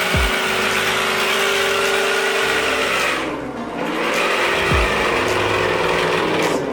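Electric drive motor and 3D-printed gearbox of a 1/8-scale RC crawler running under power, a steady mechanical whine with a few quick downward sweeps in pitch.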